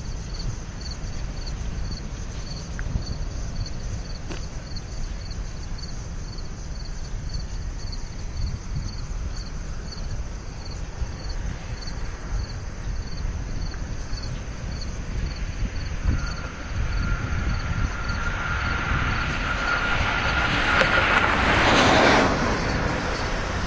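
Freight train's cars rolling around a curve with a steady low rumble. From about two-thirds of the way in, a thin steady wheel squeal rises with the rolling noise and peaks near the end.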